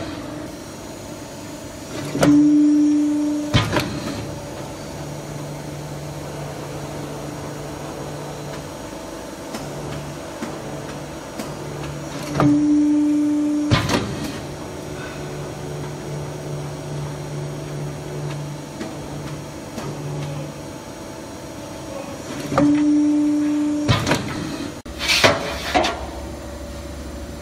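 QC11K hydraulic guillotine shear running, with a steady hydraulic-pump hum. Three times, about ten seconds apart, the hum turns into a louder tone for about a second and a half and ends in a clunk as the blade makes a stroke. A few sharp metallic clanks come near the end.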